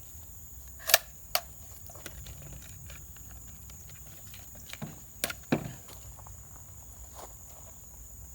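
Scattered sharp clicks and knocks from an AR-15-pattern rifle in 7.62×39mm being handled and readied for loading, with about six separate clicks and the loudest a little under a second in.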